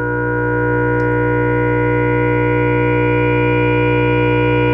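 Bontempi HP 544.20 electronic keyboard holding one steady chord on its brass-mute voice, with a low bass tone sounding under it.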